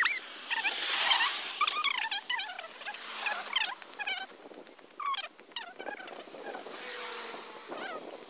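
Small birds chirping and twittering in many short, quick calls, over a faint hiss of road traffic.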